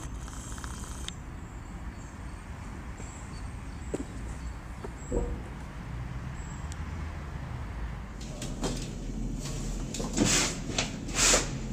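A steady low outdoor rumble for the first eight seconds or so. Then knocks, clicks and rustling as plastic storage bins on a shelf are handled and rummaged through.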